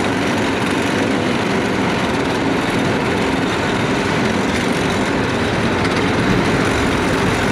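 Four-engine go-kart's small single-cylinder engines running hard together, a loud, steady, rough drone as the kart drives uphill through mud.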